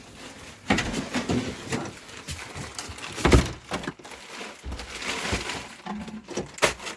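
Foley props being handled in a small room: irregular rustling and clatter with scattered knocks, the loudest knock about three seconds in.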